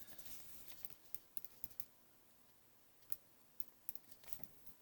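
Faint, scattered light clicks and taps, irregular and short, with a brief lull in the middle.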